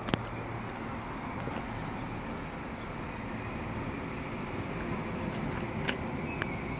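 Steady distant rumble of far-off military helicopters blended with city background noise, with a sharp click just after the start and two fainter clicks near the end.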